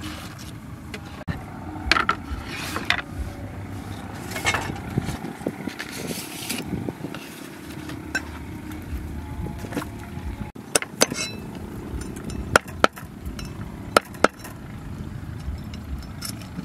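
A cleaver chopping raw chicken feet on a round wooden chopping block, with several sharp chops in the second half. Before them come rustling of a lotus leaf and handling of the chicken.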